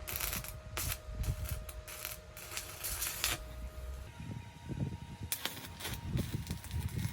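Irregular short clicks and knocks, as of hard objects being handled, over a low rumble.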